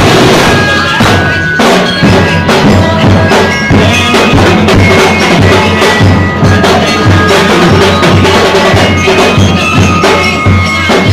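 A drum corps playing a fast Sinulog street-dance beat, with bass drums and snare-type drums striking in a dense, driving rhythm and a few high notes held over it.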